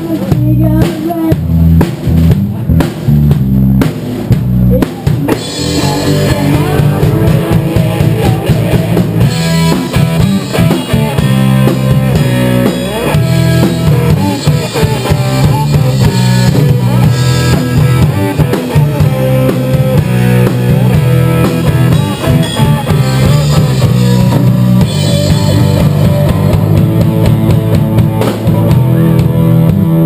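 Live rock trio playing an instrumental passage on drum kit, electric bass and electric guitar, without vocals. The sound grows fuller and busier about five seconds in.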